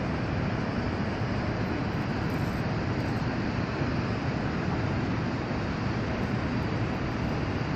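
Steady rumbling hiss of wind and water around a small boat on open water, even throughout with no distinct events.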